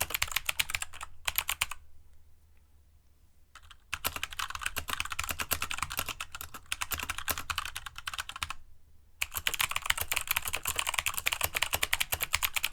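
Fast typing on an aluminium Keychron K2 mechanical keyboard with Gateron switches: rapid key clicks in three long runs, with a pause of about two seconds near the start and a short break about two-thirds of the way in.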